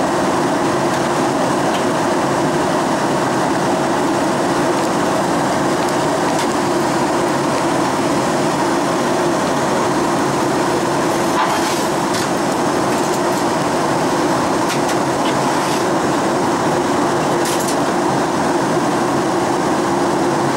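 Steady in-flight cabin noise of a Boeing 737-800: the even drone of its CFM56-7B turbofan engines and airflow over the fuselage. A few brief faint clicks come in the second half.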